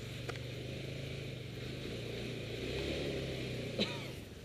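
An off-road vehicle's engine running under load as the vehicle is towed with a strap and pushed through a muddy rut, a little louder around three seconds in. A single sharp knock near the end.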